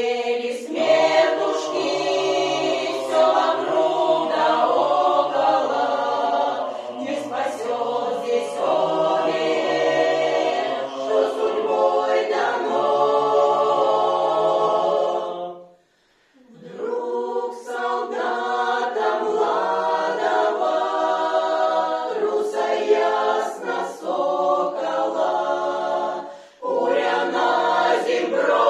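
Mixed choir of women and men singing a Russian folk song a cappella in sustained harmony. The singing stops for a moment about sixteen seconds in and dips again briefly near the end, between phrases.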